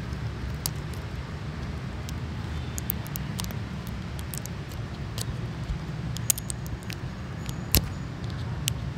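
Plastic wrapping on a toy capsule crinkling, with scattered small clicks and ticks as fingernails pick at its sealed edge, over a steady low rumble.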